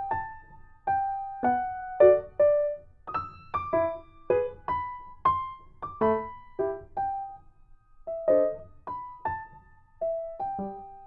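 Background piano music: a slow melody of single struck notes and occasional chords, each note ringing and fading.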